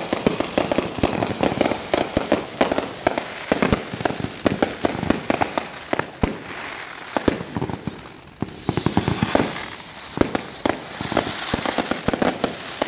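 Fireworks going off in a rapid, dense string of bangs and crackles. Several high whistles fall in pitch through it, the longest about two-thirds of the way through.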